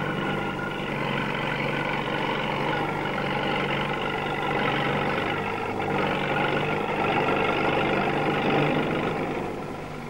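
Diesel engine of heavy pipelaying machinery running steadily, dying down near the end.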